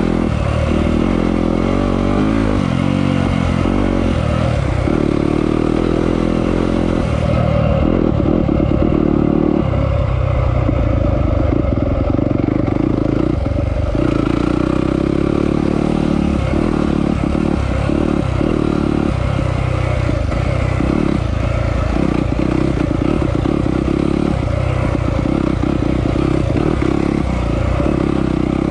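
Yamaha off-road motorcycle engine being ridden, its revs rising and falling repeatedly as the throttle is opened and closed.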